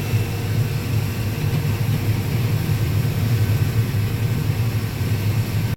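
Combine harvester running steadily while shelling corn: a heavy, even low drone with a faint steady whine above it.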